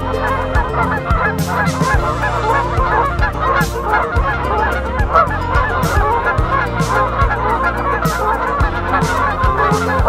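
A flock of geese honking, many calls overlapping continuously, over a steady low hum.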